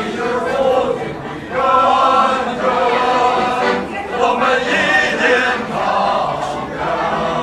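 A small group of men and women singing a song together in chorus, several voices in unison.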